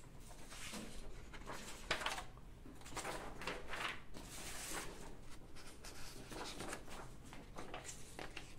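Sheets of paper rustling and sliding as posters are handled and laid into picture frames, in irregular swishes, with one sharp knock about two seconds in.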